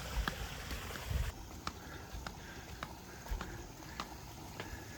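Hard-soled footsteps tapping at about two steps a second over a hissy background. The hiss drops away abruptly a little over a second in.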